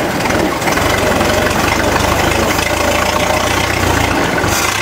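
Ford Model T four-cylinder engine running slowly through an open exhaust with no muffler, with an uneven, lumpy beat that the owner puts down to a worn distributor shaft. The low exhaust rumble grows stronger about a second in and eases off near the end.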